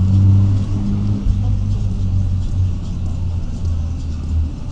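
Steady low rumble of a busy city street, with a droning hum that holds one pitch throughout.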